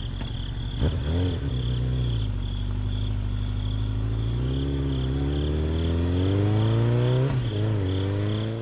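Small motor of a DIY model tractor running, its pitch dipping, climbing gradually, then dipping again as the load changes.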